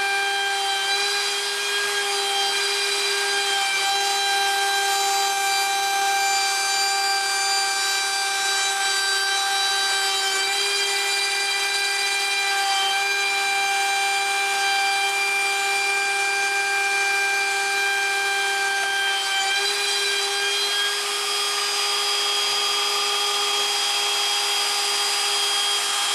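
Rockcliff CNC router's spindle running with a steady high whine while its bit cuts cedar, over the hiss of the cut. The pitch shifts slightly a few times.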